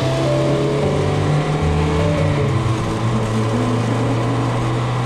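Toyota MR2 Spyder's 1ZZ 1.8-litre four-cylinder engine droning steadily as the car drives past, its note dropping in pitch about halfway through and then holding lower.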